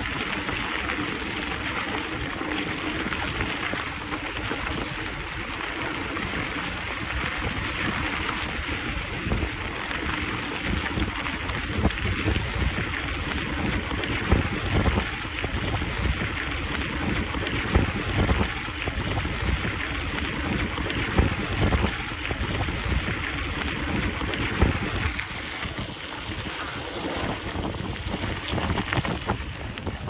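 Mountain bike riding over a dirt and sand track: a steady rushing of tyres and wind on the microphone, with a low rumble and a few sharp louder knocks scattered through.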